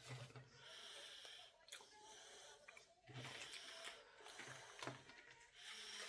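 Faint handling noise: soft hissy rustles, a few light clicks and low thumps as a small hammock ridge light is handled and taken out of its fabric carrying sack.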